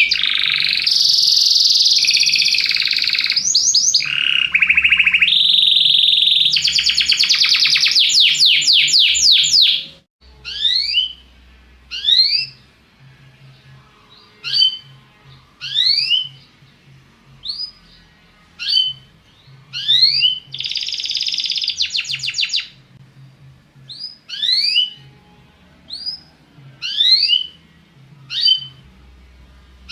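Domestic canary singing a fast, continuous song of rolling trills and buzzy phrases for about ten seconds. It stops abruptly and turns to short rising chirps, about one every second or so, with one brief trilled phrase in the middle.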